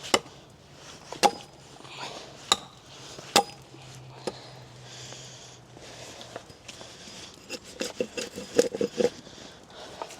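Axe chopping into wood: a series of single blows about a second apart, then a quicker flurry of lighter strikes near the end.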